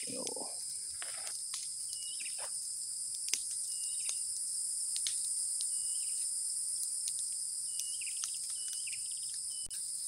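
Steady high-pitched insect chorus trilling without a break. A bird gives short chirps over it, one every second or so, and there are a few soft clicks.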